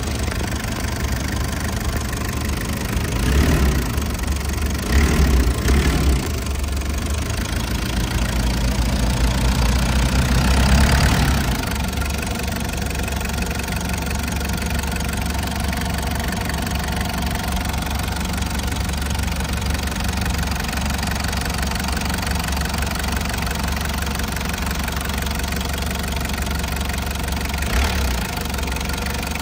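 A 1996 Toyota HiAce's four-cylinder turbo-diesel engine idling. It is revved briefly twice a few seconds in, then held at raised revs for a few seconds before dropping back to a steady idle.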